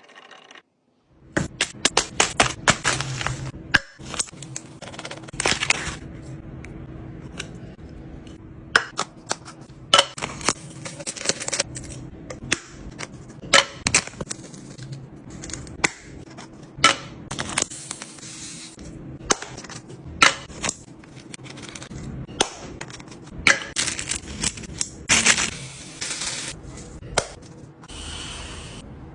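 Fridge restocking: hard plastic and glass containers clicking, tapping and being set down, with short bursts of packaging rustle, over a steady low hum.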